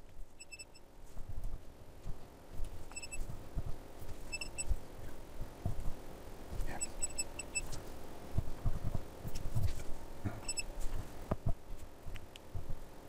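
Short high-pitched electronic beeps from a DC electronic load's front panel, coming in quick clusters of a few pips every few seconds as its load resistance is keyed in and stepped down, with soft low knocks of buttons and handling in between.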